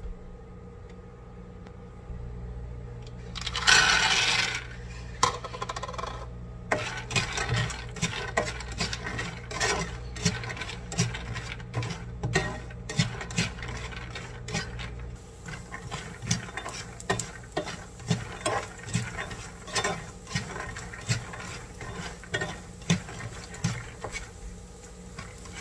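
Raw peanuts poured into a nonstick frying pan with a little oil, a loud rush of nuts hitting the pan about four seconds in. Then a spatula stirs and pushes them around, with a steady irregular clicking and clattering of peanuts against the pan.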